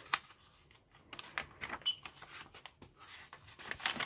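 Paper instruction booklet rustling as its pages are handled and turned over: a run of short, crisp rustles and flicks, with a sharp snap just after the start and a busier stretch near the end as the pages flip.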